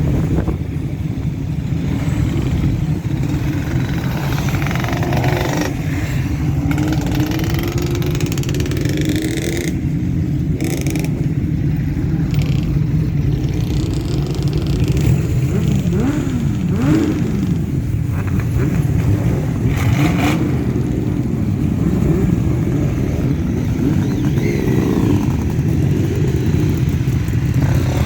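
Many motorcycles in a mass convoy, engines rumbling together, with individual bikes revving up and down as they ride past.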